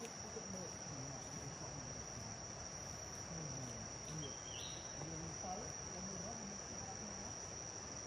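Steady, unbroken high-pitched drone of tropical forest insects.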